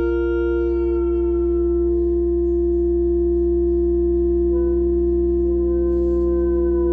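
Sustained tones of a live experimental music piece: a steady sine-like electronic drone over a low hum, with a wavering woodwind tone above it. The woodwind tone fades out about two and a half seconds in and comes back slightly higher about two seconds later.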